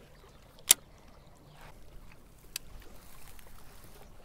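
Baitcasting rod and reel being handled: one sharp, loud click about two-thirds of a second in and a fainter click a couple of seconds later, over faint wind and lapping water.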